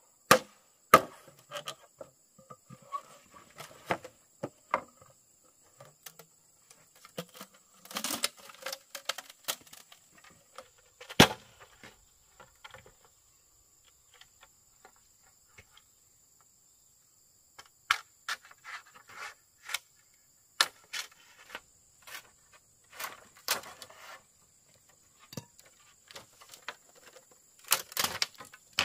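Irregular sharp knocks of a tool striking wood, coming in uneven clusters with a long pause near the middle. A faint steady high whine runs underneath.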